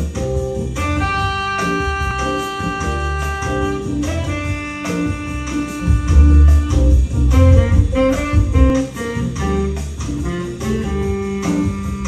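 Music played through a Sonos Beam Gen 2 soundbar with a Sonos Sub Mini subwoofer, recorded in the room, with a strong bass line. About halfway through, the Sub Mini's bass EQ goes from 0 to +15 and the low end gets heavier and louder.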